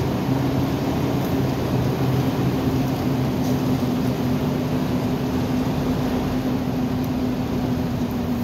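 A heavy truck's engine droning steadily under road and tyre noise, heard inside the cab while cruising.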